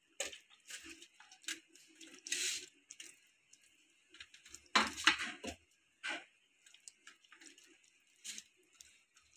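Hands squishing and rubbing thick tandoori marinade into a whole raw chicken on a steel plate: irregular wet squelches and slaps, loudest about five seconds in.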